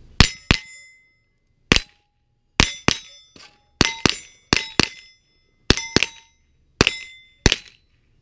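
About fifteen rifle shots from an AR-style carbine, fired in quick pairs and short strings. Each crack is followed by the ringing clang of a steel target plate being hit.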